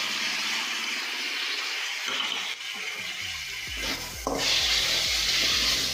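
Sliced onions, tomato and coriander sizzling in hot oil and ghee in an aluminium kadai. In the second half a metal slotted spoon stirs the pan, with a couple of sharp knocks of the spoon against the metal.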